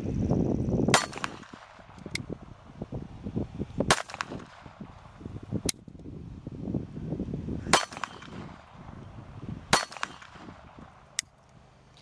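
Cobra CA .380 ACP pistol firing four single shots a few seconds apart, with lighter metallic clicks between them as the slide is worked by hand; the gun is not cycling on its own and needs clearing between shots. Wind rumbles on the microphone.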